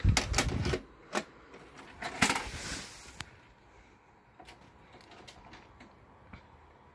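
Clicks, knocks and plastic clatter from a VHS cassette being handled: a cluster of knocks at the start, a single click just after a second, another clunk with rustle about two seconds in, then a few faint clicks.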